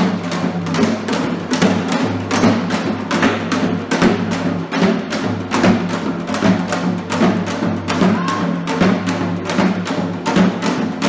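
Korean traditional music with steady, evenly repeated drum strokes, about three a second.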